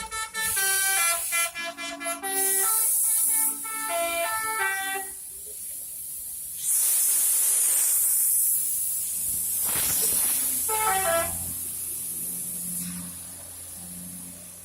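A bus's multi-tone 'telolet' musical air horn plays a quick melody of stepped notes for about five seconds. A loud hiss of air follows, then a short falling run of horn notes. Under that, the bus engine runs steadily.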